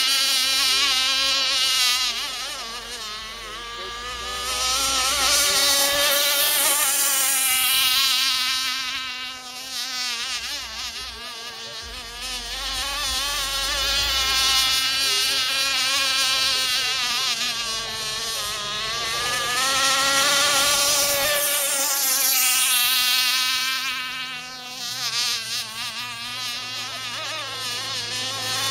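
Radio-controlled racing boat's small engine running at speed with a high, buzzing whine whose pitch wavers, swelling and fading every six or seven seconds as the boat laps the oval course.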